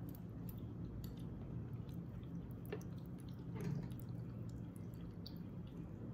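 A metal fork twirling creamy spaghetti on a ceramic plate: soft wet squishes of the pasta and a few light clicks of the fork against the plate, the loudest two around the middle, over a steady low hum.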